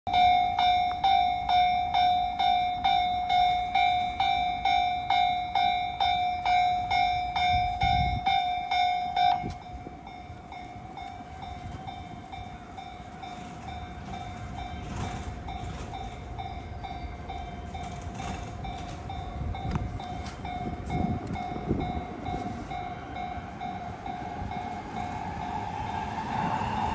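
Japanese railway level-crossing warning bell dinging loudly about twice a second, stopping suddenly about nine seconds in. After that a fainter tone at the same pitch carries on over train running noise that grows louder near the end.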